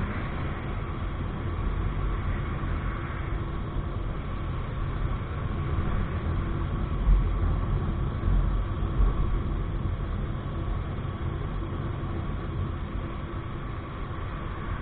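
Motorcycle riding along a road: steady engine and road noise with a heavy low wind rumble on the microphone, and a few louder bumps about seven and nine seconds in.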